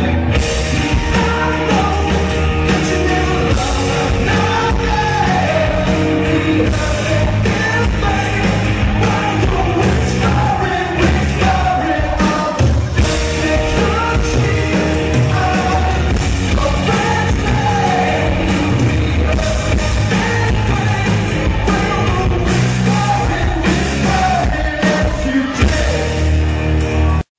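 Live rock band playing: a male lead singer over electric guitar, keyboards and drums. The sound drops out for an instant near the end.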